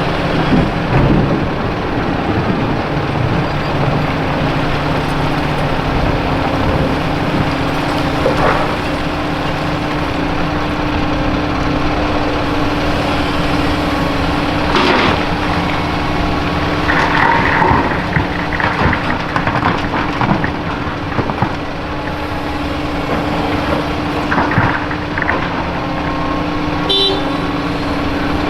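Volvo EC480EHR excavator running with a steady tone over its engine hum, with several spells of crushed concrete clattering and scraping as it is loaded into a dump truck.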